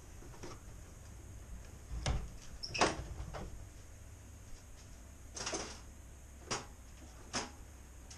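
Glazed wooden garden doors being pulled shut and latched: a few separate knocks and clunks, the loudest two close together about two to three seconds in. More single knocks follow a few seconds later.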